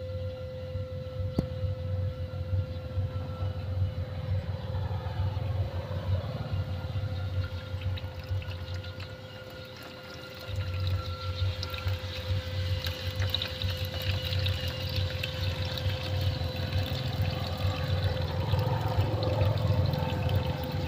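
A 12-volt DC submersible water pump running with a steady hum, pushing water up a hose. Water splashes and pours back into the tub, growing louder in the second half, and the low rumble drops out briefly near the middle.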